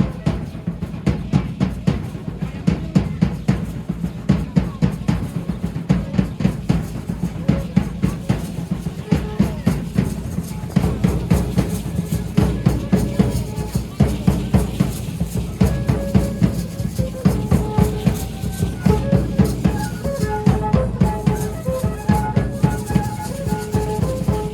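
Dance music for a danza de pluma: a drum beating a fast, steady rhythm, with a melody of held notes played over it that comes through more clearly about halfway in.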